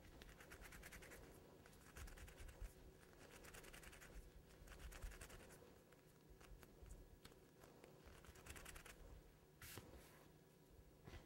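Faint rubbing of hands rolling a lump of fondant into a ball between the palms, coming in several short spells.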